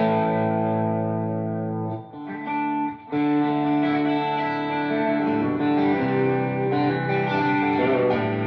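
An R4 electric guitar with Wildwood underwound A3 P90 pickups is played through a ToneKing Royalist preamp into powered PA speakers. A chord rings out and fades for about two seconds, then after two short breaks more chords and single notes sound. The guitar's volume knob is being turned down, which cleans up the gain.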